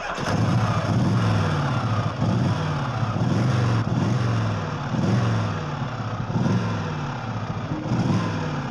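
Harley-Davidson motorcycle V-twin engine starting with a sudden burst, then revved again and again, its pitch rising and falling roughly once a second.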